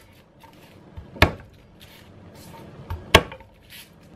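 Kitchen knife striking a cutting board while working a head of garlic: two sharp knocks about two seconds apart, the second with a lighter tap just before it, and faint rustling between them.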